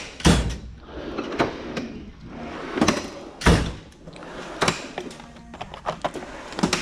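A series of irregular knocks and clunks, about six sharp strikes spread unevenly across several seconds.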